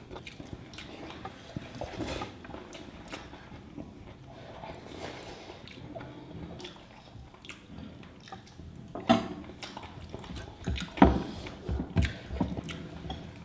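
Close-up eating sounds: wet chewing and squishing of rice and curry, with many small clicks and a few louder clicks about nine and eleven seconds in.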